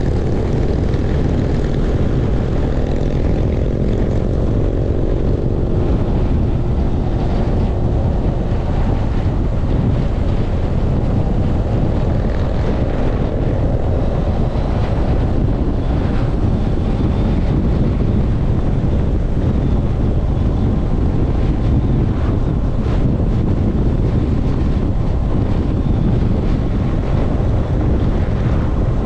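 Motorcycle engine running at road speed under steady wind noise on the microphone, its pitch shifting in the first few seconds.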